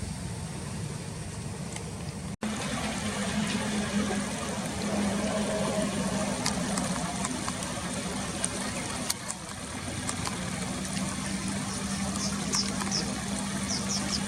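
River water flowing and trickling steadily, under a steady low hum, with a brief dropout about two seconds in. Near the end a small bird gives several short, high, falling chirps.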